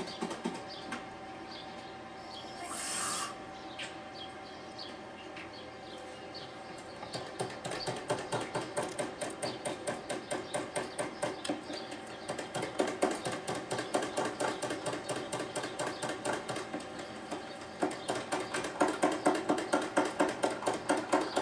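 Yorkshire pudding batter beaten by hand in a plastic jug: a steady run of quick clicks and splats as the utensil strikes the jug, about three to four a second. It starts light, settles into a steady beat about seven seconds in and grows louder near the end.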